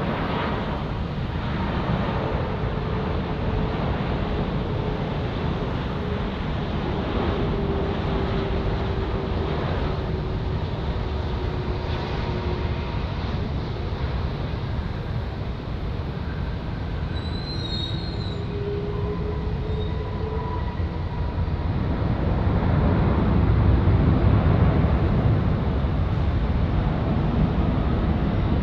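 Jet engine noise of a landing Airbus A330-300 airliner: a steady rumble with faint whining tones that slide in pitch, growing louder in the last few seconds as the plane rolls out on the runway after touchdown.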